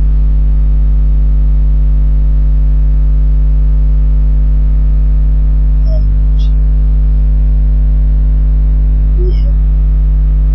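Loud, steady electrical mains hum, a 50 Hz buzz with its overtones, on the recording. A couple of faint brief sounds come through about six and nine seconds in.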